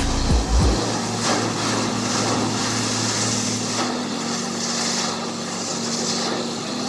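Borewell drilling rig's engine running steadily under load, its pitch shifting slightly a few times, with a hissing noise over it.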